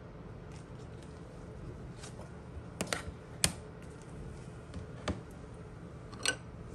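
A few sharp, separate clicks and taps from trading cards and plastic card holders being handled on a table, the loudest about three and a half seconds in.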